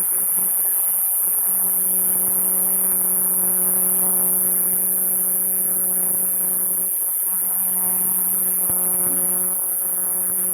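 A continuous, very high-pitched shrill sound holds steady, with a low steady hum beneath it.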